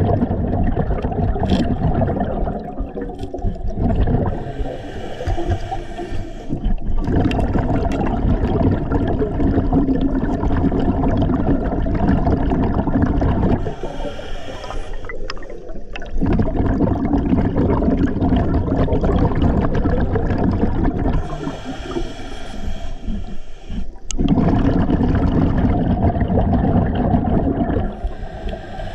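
Scuba diver breathing through a regulator underwater. Long gurgling rushes of exhaled bubbles alternate with shorter hissing inhalations, about four breaths.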